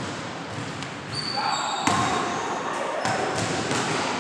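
Basketball bouncing on a hardwood gym floor, a few sharp thuds in the second half, with sneakers squeaking briefly on the court.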